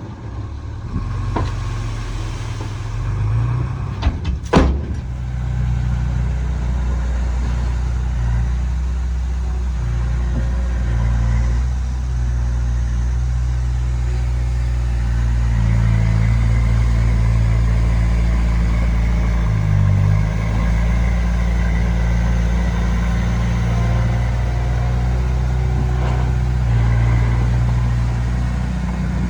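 Heavy diesel engine running steadily, growing louder over the first second or two, with a sharp clank about four and a half seconds in.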